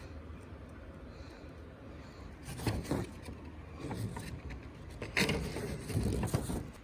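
Plastic smoke alarms being handled: rustling, rubbing and light knocks in short bursts about two and a half, four and five to six and a half seconds in, over a low steady hum.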